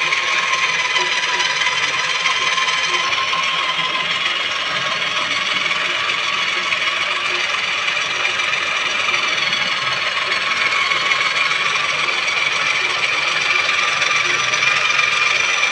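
Electric drill spinning a cylinder hone inside the liner bore of a Massey Ferguson 385 tractor engine block, running steadily with the hone scraping against the liner wall as it is honed and polished.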